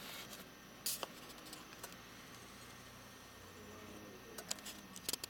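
Faint, steady hum of a Subaru Forester's flat-four boxer engine idling, heard from inside the cabin. A sharp click about a second in and a run of clicks and rustles near the end come from the camera being handled.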